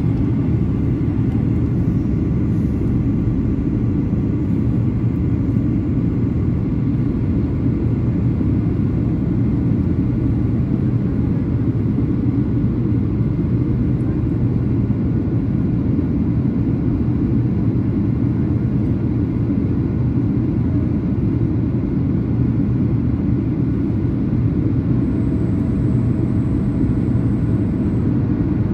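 Steady in-flight cabin noise of a Boeing 737-800 with CFM56-7B turbofans: a constant low rumble of engines and airflow over the fuselage.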